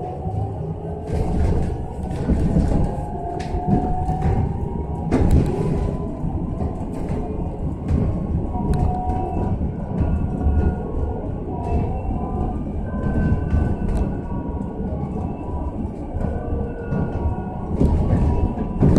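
Cabin noise of a moving battery-electric bus: a steady low road rumble with a faint electric-drive whine that drifts in pitch, and scattered rattles and clicks from the bodywork.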